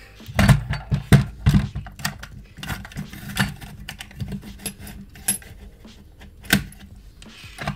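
Clicks and rattles of a Derwent Superpoint manual helical pencil sharpener being handled as its pencil carriage is squeezed together and pulled all the way out. The clicks come in a quick cluster during the first second and a half, then as scattered single sharp clicks.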